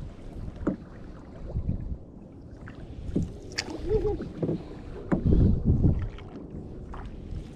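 Canoe under way with paddle strokes in the water and a few sharp knocks, while wind buffets the microphone in gusts.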